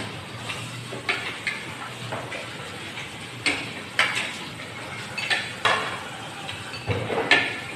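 Spoons and forks clinking and scraping on plates as several people eat: irregular sharp clinks, roughly one a second, the loudest near the end.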